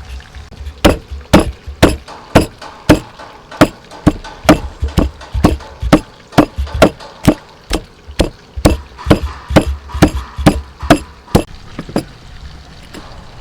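A steady run of sharp chopping strikes on a wooden board, about two a second and slightly uneven, stopping about a second and a half before the end.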